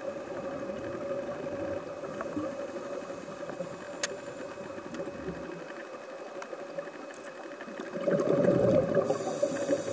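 Steady mechanical hum heard underwater, holding one tone, with a single sharp click about four seconds in. A louder, low rushing burst comes about eight seconds in and lasts roughly a second.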